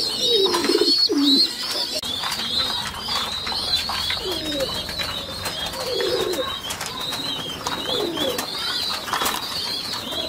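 Pigeons in a loft: a continuous run of rapid, high-pitched squeaks, the begging calls of squabs being fed beak-to-beak by their parents. Lower pigeon coos come in every few seconds.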